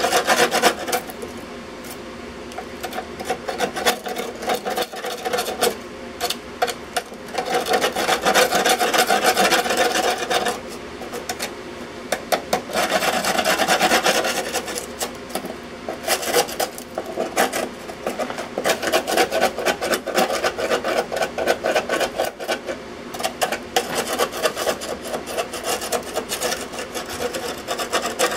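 A hand tool scraping rust off the rusted-out top of a metal electrical box: rapid back-and-forth scraping strokes in spells, with short pauses between.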